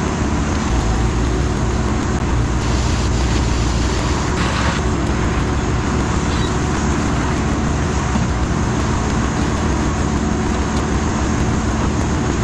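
Mini excavator's diesel engine running steadily at working speed while it handles brush.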